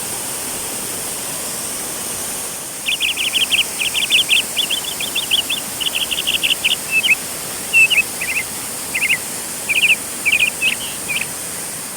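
Steady rushing of a waterfall, with a bird singing a long run of quick, high chirps from about three seconds in until near the end.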